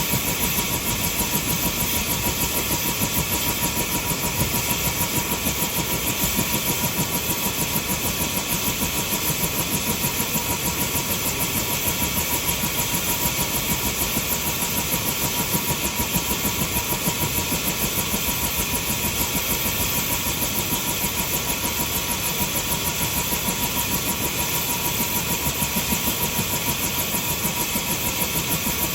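Helicopter engine running at a steady speed, with a high whine over a rushing noise and a fast, even pulsing.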